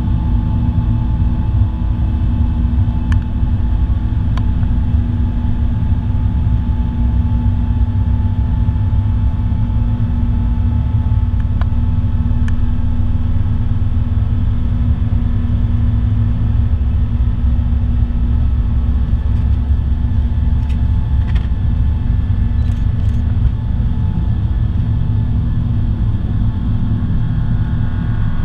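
Inside the cabin of an Airbus A350 taxiing on its Rolls-Royce Trent XWB engines: a steady low rumble with a few steady hum tones running through it, and a few faint clicks.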